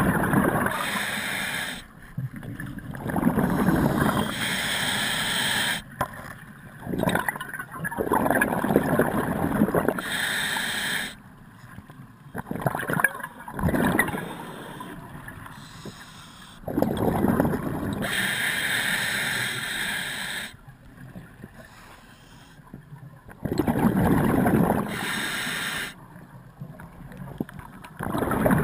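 Scuba diver breathing through a regulator underwater: inhaled hiss alternating with bursts of exhaled bubbles, a breath roughly every five seconds.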